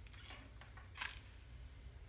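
Faint rustling of hair being handled and drawn through a flat iron, then one sharp click about a second in, over a low steady hum.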